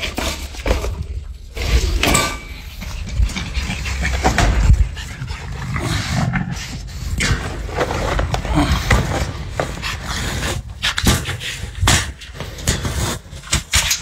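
Several dogs moving about close to the microphone, with scuffling, short sharp sounds and a constant low rumble from the phone being handled.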